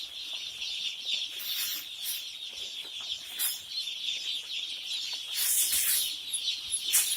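A dense chorus of day-old chicks peeping: a steady, high chirping from many birds at once. A few brief rustling hisses, about one and a half seconds in, around five and a half seconds and near the end, fit cracked maize grits being scattered onto the floor.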